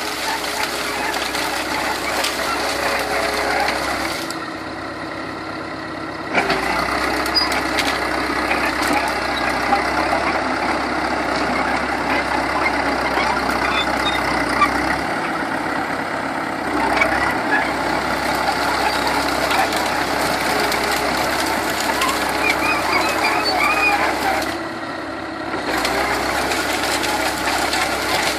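International Harvester crawler bulldozer's engine running steadily under load while clearing brush, with scattered crackling. The engine note eases briefly twice, about four seconds in and near the end.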